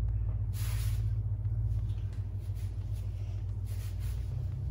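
A steady low hum, with a few faint short hisses about half a second in and again near the end.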